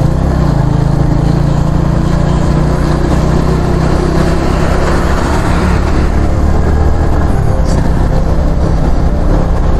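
Suzuki GS150 motorcycle's 150 cc single-cylinder engine running steadily at highway cruising speed, with steady road and wind noise.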